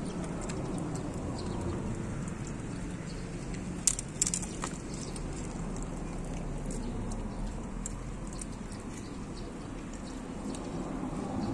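A dog chewing and smacking on pieces of meat from a stainless steel bowl, with a few sharp clicks about four seconds in.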